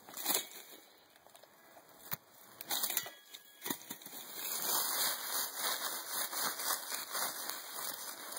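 Dry leaf litter crackling and rustling as it is disturbed around a dig hole. A few separate sharp clicks come first, then the crackling turns dense and continuous from about halfway through.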